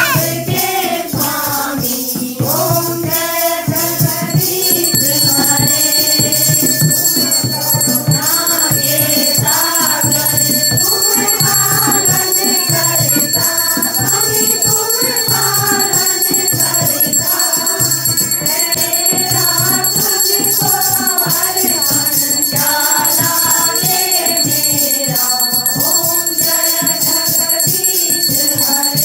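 A group singing a Hindu devotional aarti song in chorus, with shaken rattle-like percussion. A steady high ringing starts about four seconds in.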